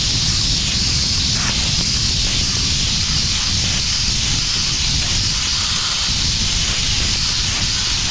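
Sandblasting nozzle blasting abrasive against the steel tub of a tipper lorry, stripping rust and paint back to bare steel: a steady, loud hiss with a low rumble underneath.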